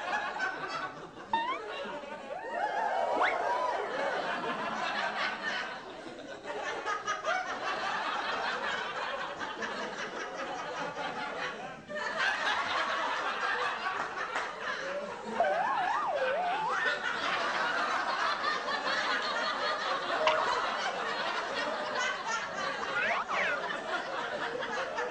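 A group of people laughing continuously, the laughter dipping briefly about six and twelve seconds in.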